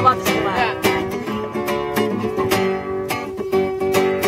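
Acoustic guitar strummed in a steady rhythm, chords ringing on between strokes, as the lead-in to a song.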